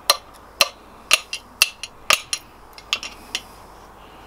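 Sharp metallic taps with a short ring, about two a second, on a VW Beetle piston and cylinder barrel as the piston is tapped through to expose its gudgeon pin. The taps grow weaker and sparser and stop about three and a half seconds in.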